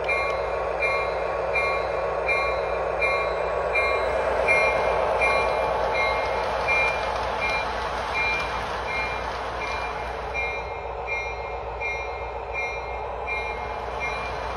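Lionel LionChief RS-3 model diesel locomotive's built-in sound playing a bell that rings steadily about twice a second, over the continuous running noise of the O-gauge train going round its track.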